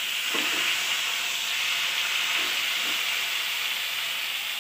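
Spice-stuffed tomatoes sizzling in hot oil in a kadhai with a fenugreek-seed tempering: a steady, loud hiss.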